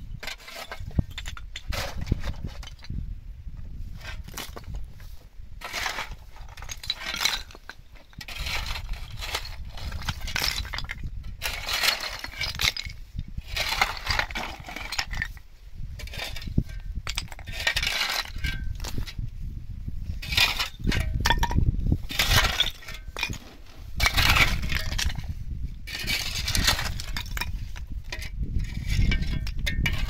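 Shovel blade scraping over stony ground and scooping up broken flat stone, with stone chips clinking against each other and the blade, in repeated strokes about every second or two.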